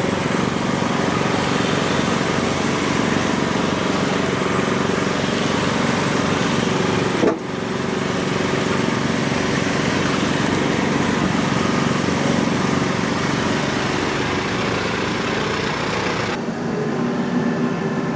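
A portable band sawmill runs steadily, its engine holding speed while the band blade cuts through a large tulip poplar log. About 16 seconds in, the high hiss of the cutting falls away and the engine keeps running.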